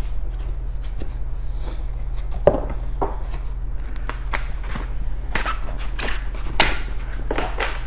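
Foam packing and a cardboard box being handled: scattered rustles and short knocks, the loudest about two-thirds of the way through, over a steady low hum.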